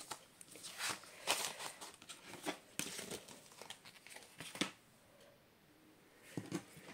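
Sheets of cardstock being picked up, slid and shuffled on a craft mat: scattered paper rustles and light taps, with a quieter moment shortly before the end.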